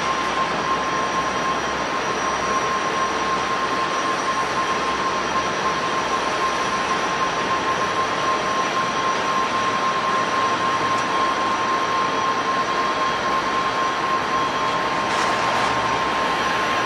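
Jet airliner engines running steadily: a constant rush of noise with a steady high tone held over it.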